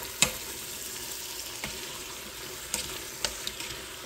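Chicken and vegetables sizzling in a Nesco Carry Canner's metal inner pot on the brown setting while being stirred with a plastic slotted spoon, which clicks against the pot about five times.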